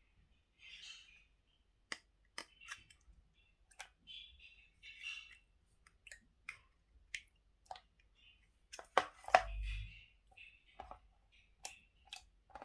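Irregular small clicks and taps with brief rustles, and a heavier knock with a low thud about nine seconds in.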